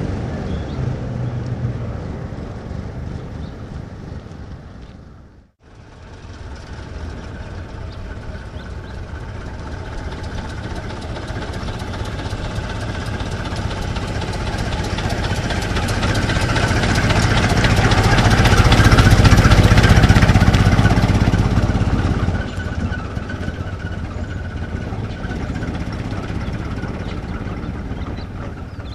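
Old car's engine running. It fades out to nothing about five seconds in, then comes back, growing steadily louder to a peak about two-thirds of the way through, and eases off toward the end.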